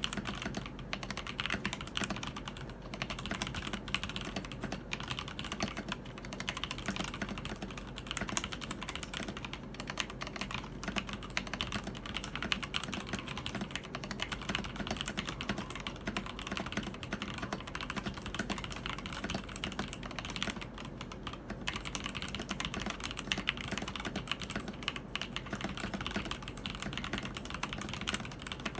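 Keydous NJ80 mechanical keyboard fitted with TTC Speed Silver linear switches, typed on in a fast, dense, unbroken stream of keystroke clicks and clacks.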